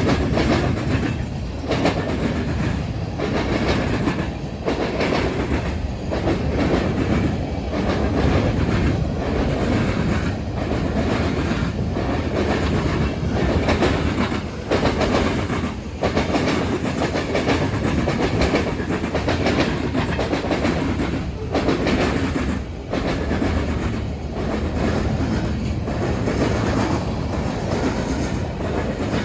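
BNSF freight train cars rolling past, their wheels clattering over a rail diamond crossing in a steady clickety-clack, a sharp clack about every second and a half over a continuous rumble.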